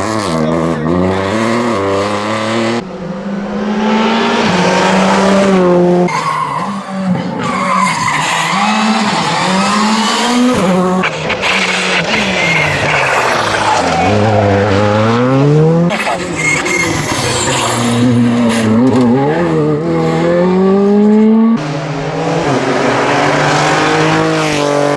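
Rally cars at full stage speed, one after another: engines rev high and drop sharply on each gear change and lift, over tyre and road noise.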